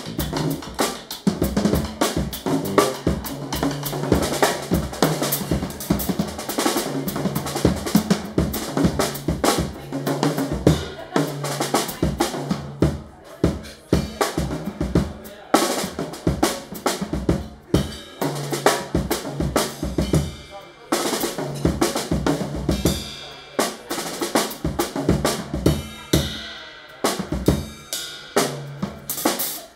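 Drum kit in an Afro-beat/jazz trio playing a dense, busy passage of snare, bass drum and rimshot hits with rolls. The drums are in front, over a low held note that drops out briefly a few times.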